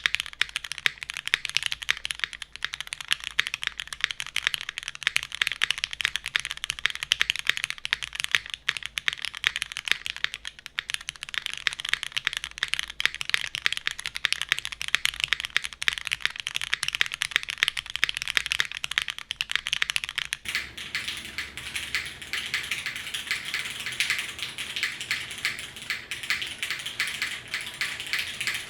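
Fast continuous typing on a custom mechanical keyboard with lubed Cherry MX Black linear switches, an aluminium plate and GMK keycaps: a dense stream of key clacks. About two-thirds of the way in, the clacks become softer and more even.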